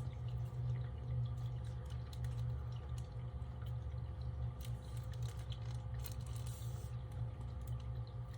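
Steady low hum of room tone with faint, scattered small clicks and ticks from a purse strap being handled.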